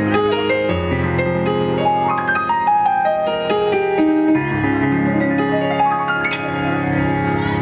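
Yamaha CP stage piano played solo: a melody of single notes over held low chords, with the bass changing every second or two.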